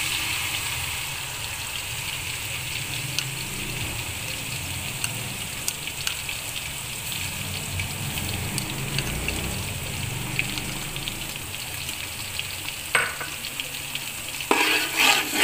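Blended onion paste frying in hot mustard oil: a steady sizzle with scattered small pops and crackles.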